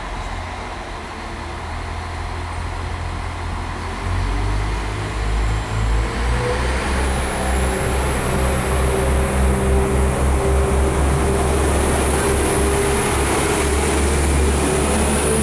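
NIR Class 4000 CAF diesel multiple unit pulling out of the station, its diesel engine rumble growing louder about four seconds in as it accelerates past. A whine rises gradually as the train gathers speed.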